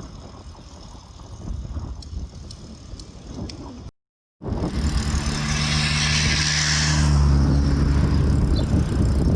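Open-road noise while cycling: quiet at first, then after an abrupt cut about four seconds in, loud wind on the microphone with a motor vehicle going by, a low steady hum under a hiss that swells and eases off.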